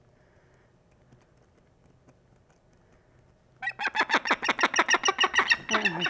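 Peregrine falcon calling in a loud, rapid series of about five or six notes a second, starting suddenly about three and a half seconds in after near quiet.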